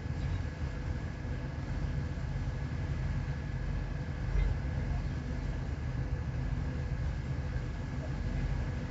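A ship's engine running with a steady low drone and a few constant humming tones above it.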